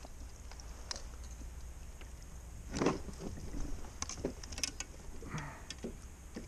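Scattered clicks, taps and knocks of a landing net being handled against a plastic kayak with a netted black crappie in it, with one louder knock about three seconds in.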